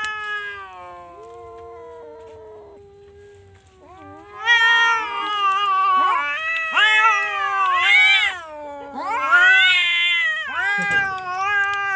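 Orange domestic cat yowling in long, drawn-out calls: softer and steady for the first few seconds, then from about four seconds in, louder calls that rise and fall in pitch, one after another.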